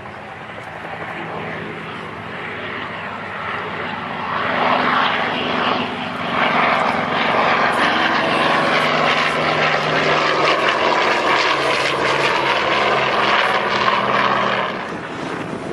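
Propeller airplane engine passing overhead: it grows louder over the first several seconds, stays loud and steady, then drops away near the end.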